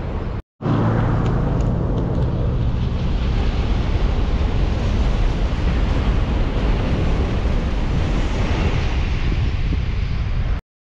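Shinkansen bullet train running past on an elevated concrete viaduct: a steady rushing noise with a low hum. It breaks off for a moment about half a second in and cuts off suddenly near the end.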